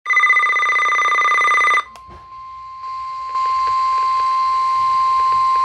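NOAA Weather Radio emergency alert signal. First comes the end of a SAME header data burst, a fast warbling two-tone digital screech that cuts off a little under two seconds in. After a brief gap, the steady single-pitched 1050 Hz warning alarm tone starts and holds, announcing a warning broadcast.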